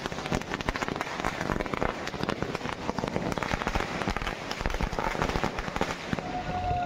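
A string of firecrackers going off in a dense, rapid crackle of sharp pops. A steady high tone begins near the end.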